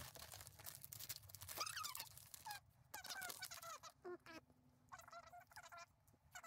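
Faint, sped-up, high-pitched chattering voices from a fast-forwarded stretch of crafting, warbling and broken into short quick bits.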